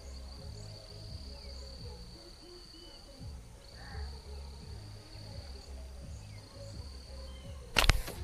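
Background music with a steady beat over a continuous high insect drone. Near the end comes a single sharp, loud snap: a slingshot being fired at a fish.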